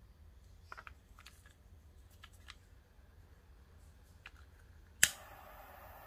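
A butane jet torch lighter clicks on with its piezo igniter about five seconds in, a single sharp click, and its jet flame then burns with a steady hiss. Before that, a few faint clicks and rustles of the lighter and cord being handled.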